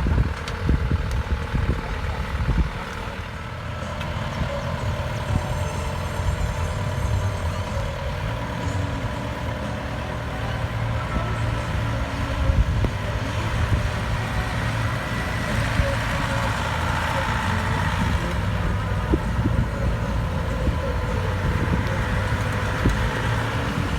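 Rice combine harvester's engine running steadily, with a steady mechanical whine over the low engine hum; rougher and louder for the first couple of seconds.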